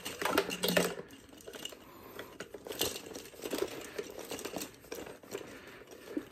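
Scattered light plastic clicks, knocks and rustling from the inflator hose being handled and fitted to the battery air pump's high-pressure port, with a brief low hum in the first second.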